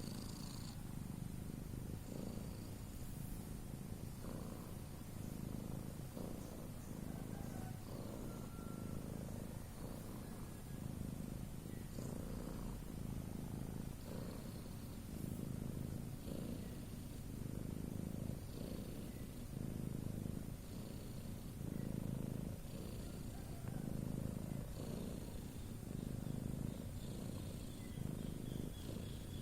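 Domestic cat's low, continuous rumble of the kind called 'ngorok', swelling and easing with each breath about every two seconds.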